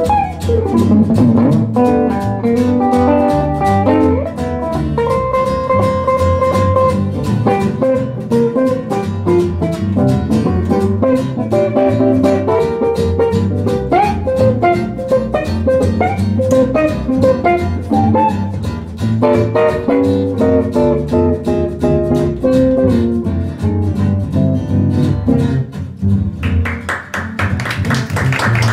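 Instrumental break of a blues played live by a guitar and double bass trio: a single-note guitar solo over acoustic guitar and plucked upright double bass. Near the end the playing changes to loud, bright, fast strumming.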